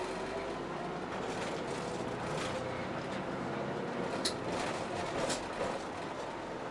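Cabin noise of a city bus under way: steady engine and road noise with a faint whine, and a sharp click about four seconds in.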